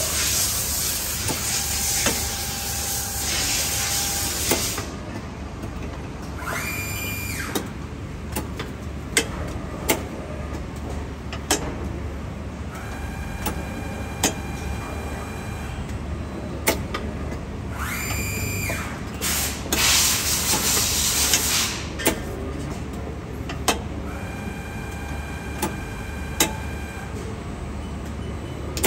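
Automatic transformer soldering machine cycling: a hiss for the first few seconds, then sharp clicks from its mechanisms and a whine that rises, holds and falls, coming back about every eleven seconds.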